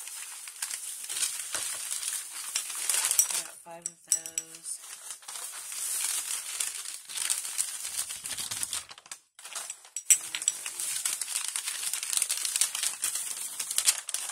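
Thin plastic shopping bag and tissue paper crinkling and rustling as hands rummage through the bag and unwrap items, with a short break about nine seconds in.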